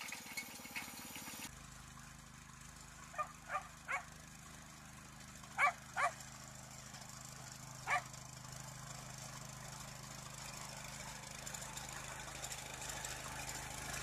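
A dog barking in six short barks: three quick ones, then two louder, then one more. Under them runs the faint, steady low hum of a walk-behind tractor's small engine pulling a potato digger.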